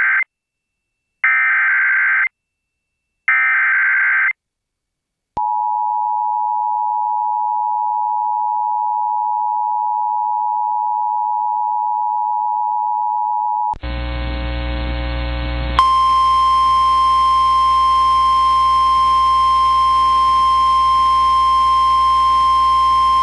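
Emergency Alert System activation on a radio broadcast: three one-second bursts of SAME header data screech, then the two-tone attention signal held steady for about eight seconds. About 14 seconds in it cuts to a hissy, humming relayed feed, which carries a single steady alert tone from about two seconds later.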